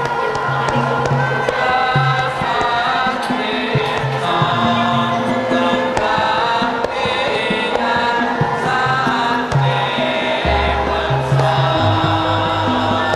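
Mixed chorus of men and women singing a Javanese song together in long, held notes, over steady low gamelan tones.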